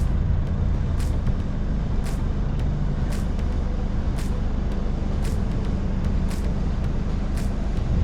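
A 4WD driving along: steady engine and road noise, with a light tick recurring about once a second.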